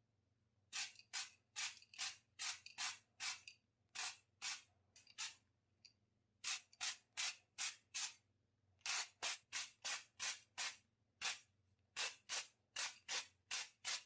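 Aerosol can of Macota heat-resisting primer sprayed in many short hissing bursts, about two or three a second, in groups with brief pauses between them.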